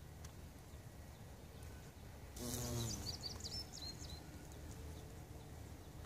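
Bumblebee's wing buzz: a short low hum lasting about half a second as it flies close past, about two and a half seconds in. A few quick high bird chirps follow it, over faint steady outdoor background noise.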